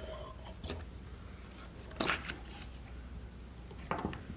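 Plastic housing of a Shurflo 12 V diaphragm water pump being handled and pulled apart by hand: a few clicks and knocks of the plastic parts, the loudest about two seconds in and another near the end, over a low steady hum.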